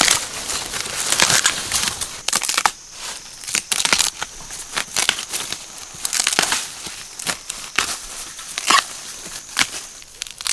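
Thorny bamboo shoots being snapped off by hand: a run of sharp cracks and crunches as the shoots break and their husks tear, with dry bamboo leaves rustling. The snaps come thick at first, then singly with short pauses between.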